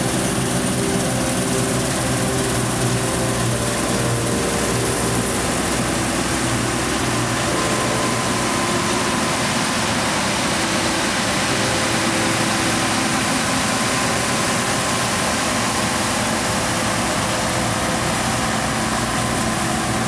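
Deutz-Fahr 6090 HTS combine harvester running steadily while harvesting barley: the engine and threshing machinery make a constant drone under a hiss.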